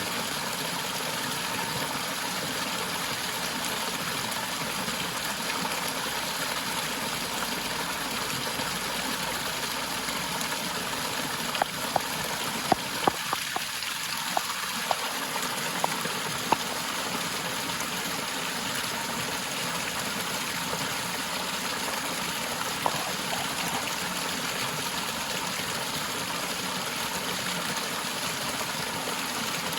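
Forest waterfall rushing steadily. A handful of brief sharp clicks break in from about twelve seconds in, and once more a little past twenty seconds.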